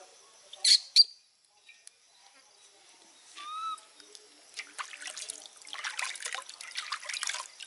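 Water splashing and trickling in an aluminium basin as a baby monkey is washed by hand, becoming steady and busier about halfway through. Earlier come a few short high-pitched calls.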